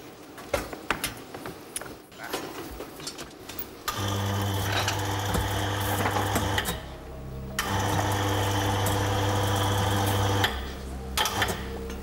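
A 38 kg demolition hammer (jackhammer) running in two steady bursts of about three seconds each, with a short pause between them, starting about four seconds in. Before it there are only scattered clicks and knocks.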